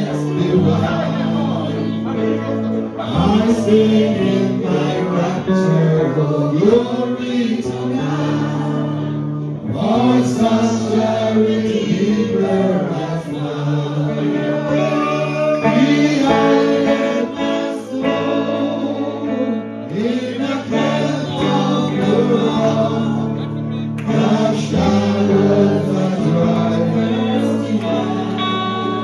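Gospel choir singing with instrumental accompaniment, voices sustaining and sliding between notes.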